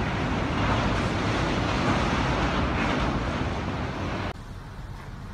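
Strong wind buffeting the microphone over churning harbour water, a loud, even rushing noise with a low rumble. It cuts off suddenly about four seconds in, leaving a quieter rumble.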